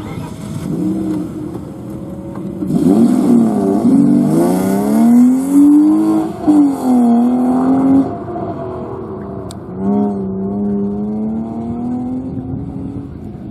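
BMW E36 rally car's engine revving hard under acceleration, its pitch climbing and dropping several times. It is loudest in the middle, then settles into a quieter, steadier pull that slowly rises as the car moves away.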